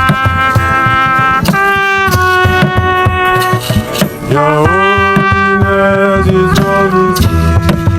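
Instrumental break of a worship song: a lead instrument plays long held notes over bass and drums, with a rising slide into a new note about four seconds in.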